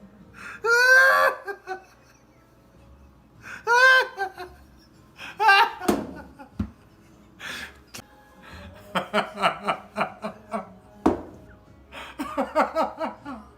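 A person laughing in several bursts, ending in runs of quick ha-ha pulses, over faint background music.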